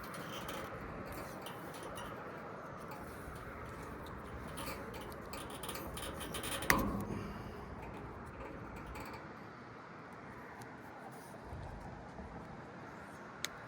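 Quiet handling sounds of electrical tape being wrapped over a condenser fan motor's wire connections and spade terminals, over a steady background hiss, with a sharp click about seven seconds in.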